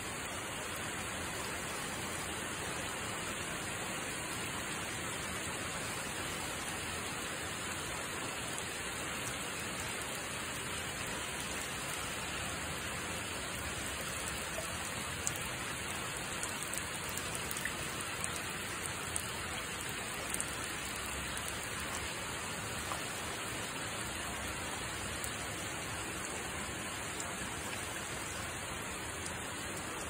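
Rainwater streaming down a handmade copper rain chain of wire links and sheet-copper leaves: a steady splashing trickle over the sound of falling rain, with a few sharper drops about halfway through.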